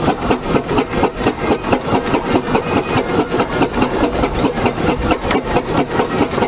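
Fowler 14NHP single-cylinder steam ploughing engine working hard under load, its exhaust beating from the chimney in a steady rhythm of about four sharp beats a second as it takes up the strain on the cable.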